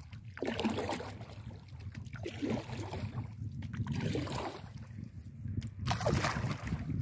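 Kayak paddle strokes: the blades dipping and pulling through the lake water, sloshing and splashing with each stroke, every second or two.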